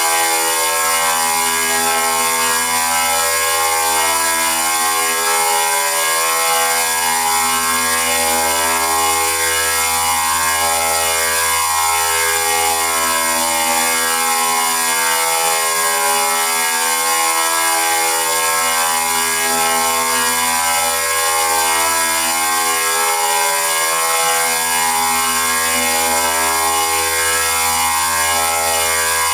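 Synthesized electronic robot sound effect: a continuous buzzing electronic sound whose tones keep stepping up and down in pitch, over a steady low hum.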